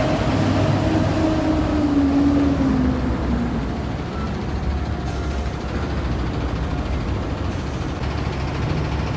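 Heavily loaded semi truck's diesel engine running over a steady low rumble. Its pitched note drops slightly and fades about two to three seconds in.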